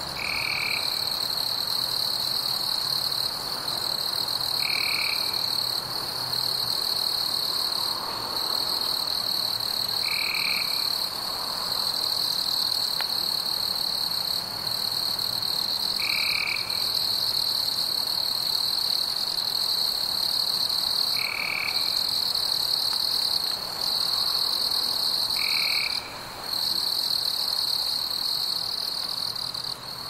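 Night forest ambience: a chorus of insects trilling steadily at a high pitch, broken by brief pauses, with a short chirping call repeating about every five seconds.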